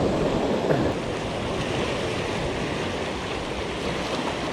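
Sea waves washing and wind on the microphone: a steady rushing noise.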